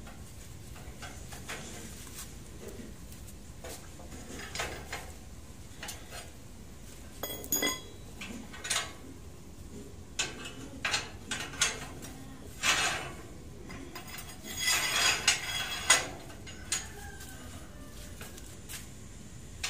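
Steel reinforcing bar being bent into stirrups with a hand bending bar on a bench jig: scattered metal-on-metal clinks and clanks as the tool and rod knock together, busiest about three-quarters of the way through.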